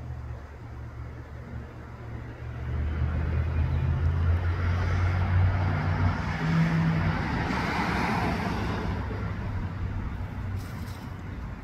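A motor vehicle passing: a low engine hum and rushing noise that swell from a couple of seconds in, peak near eight seconds and then fade.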